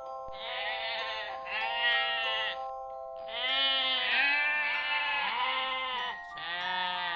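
A farm animal bleating, several calls in a row with wavering pitch, over soft background music with long held notes.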